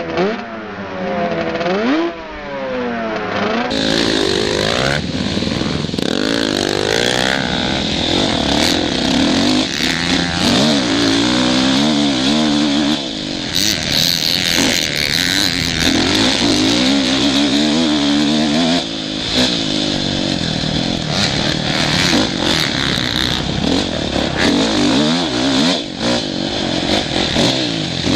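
Motocross bike engine heard on board while riding a dirt track: it revs up and drops back again and again as the rider works the throttle and gears, with wind rushing over the microphone and occasional rattles and knocks.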